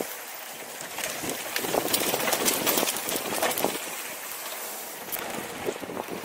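Mountain bike rolling fast down a dry dirt trail: tyres hissing and crunching on the dirt, with a stream of small clicks and rattles from the bike.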